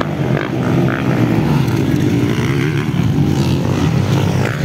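Motocross dirt bike engines running hard on the track, their pitch rising and falling as the riders work the throttle over the jumps.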